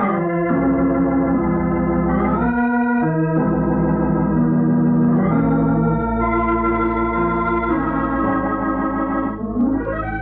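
Organ music bridge between scenes of a radio drama: sustained chords that change every second or two, with a rising slide near the end.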